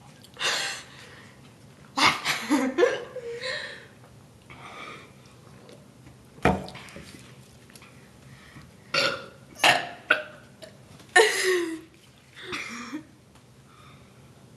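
Forced burps, one after another at irregular intervals, some short and some drawn out. The longest comes about eleven seconds in and drops in pitch as it ends.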